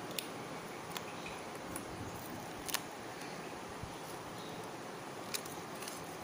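Light clicks and taps from handling a homemade cardboard toy oven, as its door is lowered and a foil-lined tray is slid inside, over a steady hiss.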